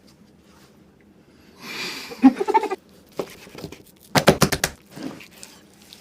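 Mouth sounds of eating meat: a short, breathy, partly voiced sound near the middle, then quick runs of wet smacking and chewing clicks from about four seconds in.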